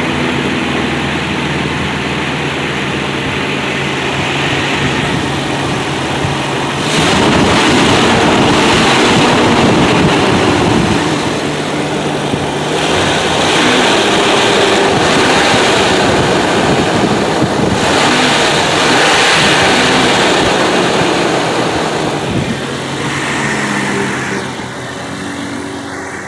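1993 Jeep Cherokee engine running on freshly replaced spark plugs. It idles, is revved up three times for a few seconds each, and drops back to a steady idle near the end. The idle is now smooth where it had been rough and stalling before the new plugs.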